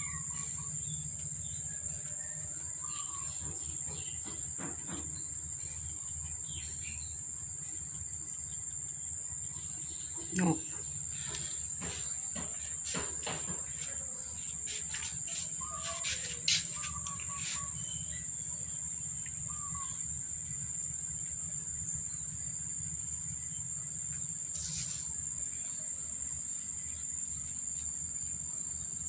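Insects drone steadily at a high pitch, with a few short chirps and two brief knocks about ten and sixteen seconds in.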